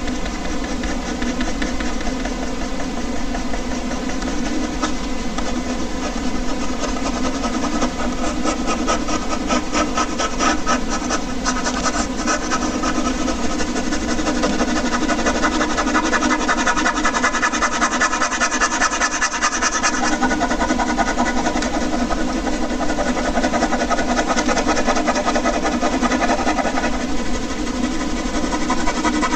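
Air conditioner running with a steady hum, under the fast scratching of a ballpoint pen on paper; the pen strokes are densest around the middle.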